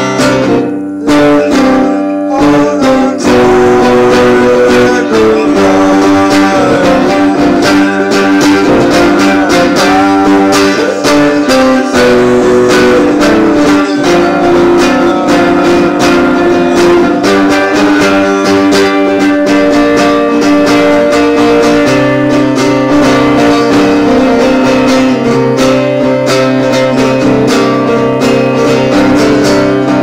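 Solo electric guitar played without pause, a continuous run of plucked notes and strummed chords.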